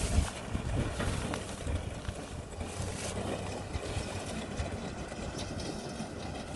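Kubota tractor's diesel engine running steadily while towing a working straw baler, the sound easing slightly as the tractor moves away.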